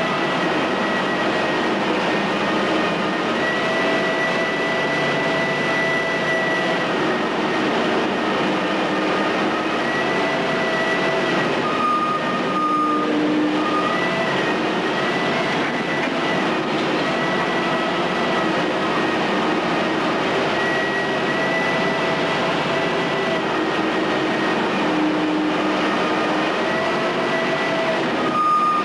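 Menck cable-operated crawler crane running steadily under load while it works a wrecking ball, its engine noise overlaid by a whine that comes and goes every few seconds and shifts in pitch.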